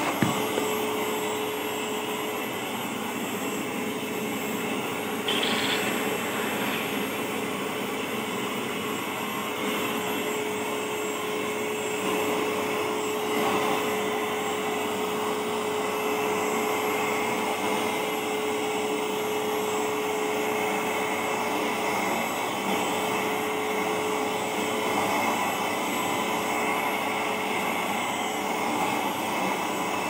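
Vacuum cleaner running steadily with its round brush attachment passed over a fabric pillow, a rush of suction air with a steady motor whine that drops away near the end.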